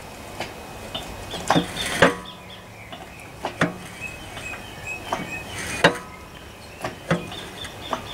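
Irregular metallic knocks and clinks, some with a brief ring, about eight over several seconds, as the cylinder barrel of a Lister CS diesel engine is worked up off its piston.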